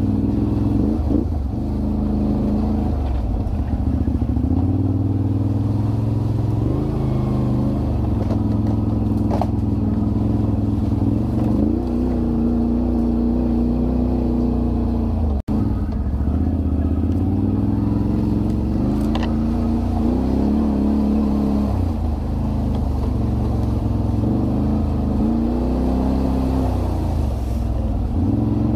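Can-Am Renegade 1000 ATV's V-twin engine running under way, its pitch rising and falling over and over with the throttle. The sound cuts out for an instant about halfway through.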